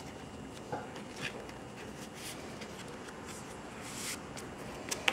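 A trading card being slid into a plastic card sleeve and handled on a play mat: a few soft rustles, scrapes and light clicks.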